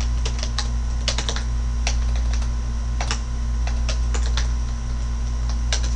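Typing on a computer keyboard: a quick, irregular run of key clicks over a steady low electrical hum.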